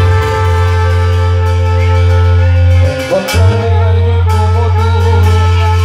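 Mexican brass banda playing live, the tuba close by holding long low bass notes under sustained brass chords. The bass breaks off briefly about three seconds in, then comes back.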